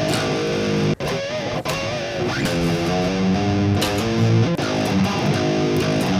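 Heavily distorted electric guitar, tuned down to drop A♭, playing a simple metalcore riff. There is a brief break about a second in.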